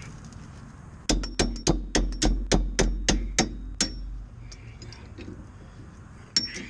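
Hammer rapping a wrench on a rear brake caliper bolt to break it loose: a quick run of about a dozen sharp, ringing metal blows, then one more blow near the end.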